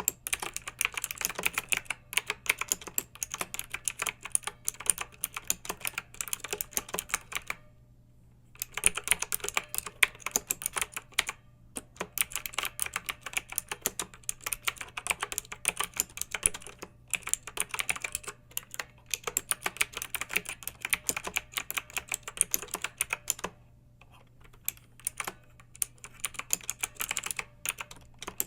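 Clicky mechanical keyboard being typed on in fast, steady runs of keystrokes, with brief pauses between bursts of typing.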